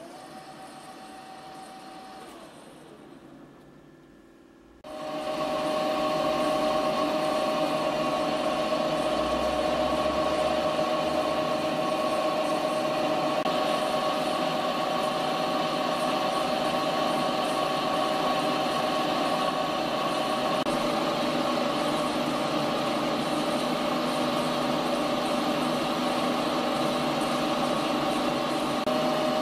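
GEMA LZ 160 center lathe with its spindle and chuck turning. At first it runs quietly with one steady tone that falls away, then about five seconds in it comes on much louder and runs steadily with a whine of several tones.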